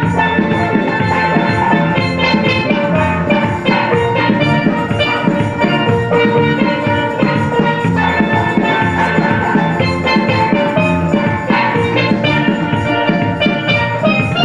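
Music with a steady drum beat and pitched melodic instruments, playing continuously.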